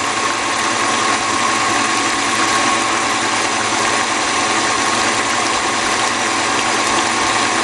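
KitchenAid stand mixer motor running steadily with a constant whine, its wire whisk spinning fast and beating hot sugar syrup and gelatin into marshmallow.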